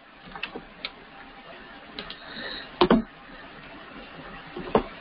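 Scattered clicks of a computer mouse, a few sharp ticks spread over the seconds with the loudest a little under three seconds in.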